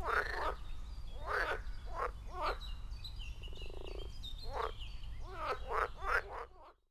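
A series of short animal calls repeating roughly once or twice a second, over a steady low hum.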